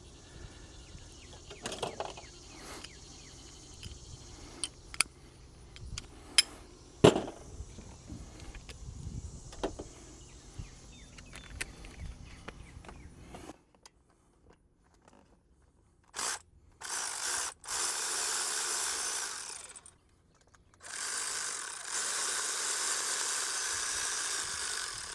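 Metal tool clicks and knocks as a 13 mm socket works the idler pulley bolts loose. After a short silence, a power tool runs steadily in two stretches of about four seconds each.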